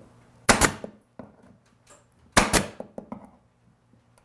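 Pneumatic nailer firing twice, about two seconds apart, each shot a sharp double snap, as it drives nails through crown molding into a wooden cabinet case.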